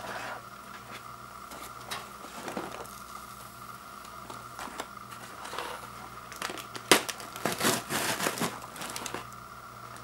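Popped paper microwave popcorn bag crinkling and rustling as it is pulled open by hand, in scattered crackles that grow into a louder spell of crinkling about seven to nine seconds in.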